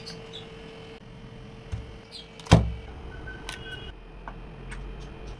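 A single loud knock about halfway through, over faint background noise with a steady low hum, plus a few light clicks and a brief high beep-like tone.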